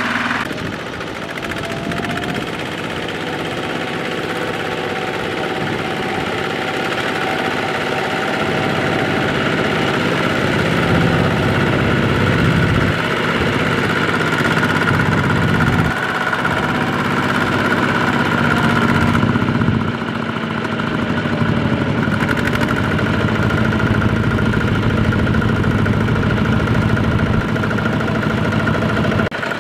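Single-cylinder diesel engine of a two-wheeled walking tractor running steadily under load as it pulls a trailer of rice sacks through a muddy rice field, the loudness edging up through the first two-thirds.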